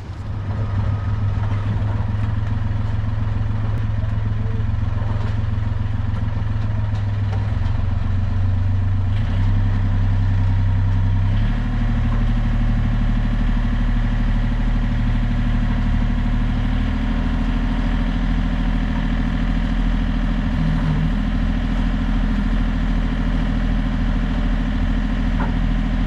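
Sailing yacht's engine running steadily while motoring in a calm. Its pitch steps to a new level a few times.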